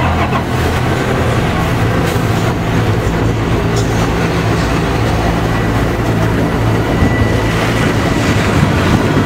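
Elevated subway train rumbling steadily on the overhead tracks.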